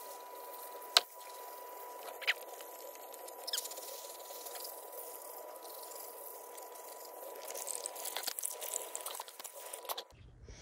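Garden hose water spraying and pattering on landscape rocks, a steady hiss. There is a sharp loud click about a second in, a smaller one a little after, and a run of irregular knocks near the end.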